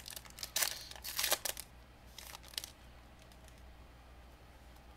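Foil booster pack wrapper crinkling and tearing open as a pack is opened, in a few short rustles during the first two and a half seconds, then only faint room hum.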